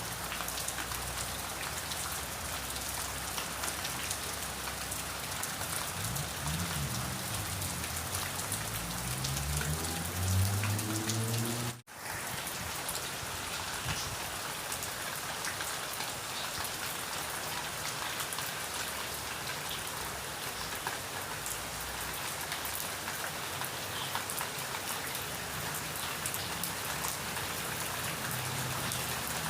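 Steady rain falling and pattering on a surface. Between about six and eleven seconds a low hum rises in pitch beneath it. Near twelve seconds the sound cuts out for an instant and the rain resumes.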